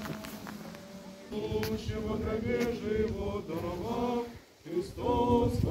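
A group of men's and women's voices singing an Orthodox church chant together, starting about a second in, breaking off briefly near the end and coming back louder.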